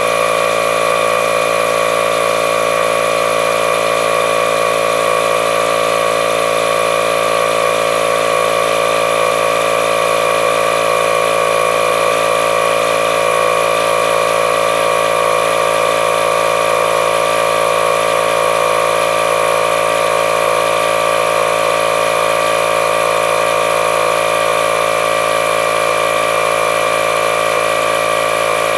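Milwaukee M12 compact inflator running steadily at a constant pitch, pumping air into an emptied tractor tire.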